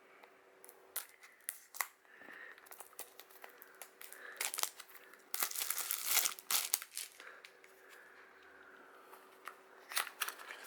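Packaging of a small toy blind box being torn open and crinkled by hand: scattered clicks and rustles, with the loudest burst of tearing and crinkling about halfway through.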